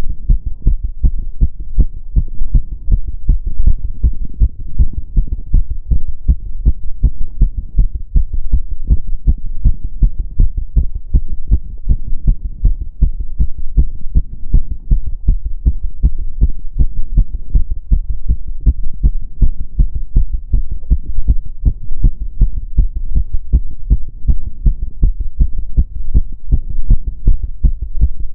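A woman's heart beating fast and regularly, quickened by step-up exercise: a steady run of deep thumps.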